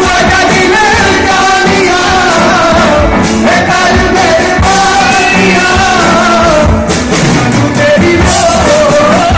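Live band playing a medley of Hindi pop songs: a singer's voice over acoustic guitar and a drum beat, loud and continuous.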